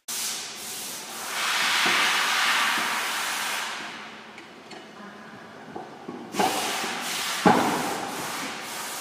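Panel-beating work on a car's front fender from inside the wheel arch: a rushing hiss for a couple of seconds, then two sharp metal knocks with scraping, about six and seven and a half seconds in.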